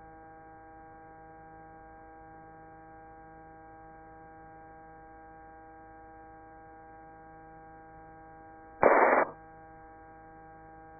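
Helicopter headset intercom feed: a steady electrical hum with several steady tones. About nine seconds in, a loud half-second burst of static, like a microphone or radio being keyed.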